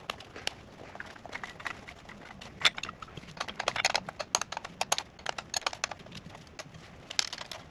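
Irregular light clicks and taps of hand work in a car's engine bay, most frequent in the middle stretch, as a low-pressure fuel line is being worked loose.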